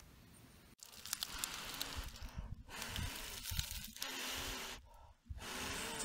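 Dry dead leaves and brown conifer needles crackling and rustling as they are crushed and gathered into a tinder bundle in a gloved hand. It comes in several bursts with short pauses.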